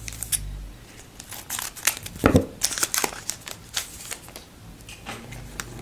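A trading-card pack's wrapper crinkling as it is torn open, with the cards handled: an irregular string of crackles and sharp ticks.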